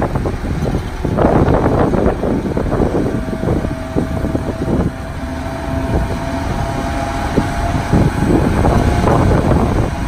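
Eight-wheel dump truck tipping a load of soil: its diesel engine running as the hydraulic hoist raises the bed, with the dirt rumbling and clattering out the back. A steady whine sounds through the middle.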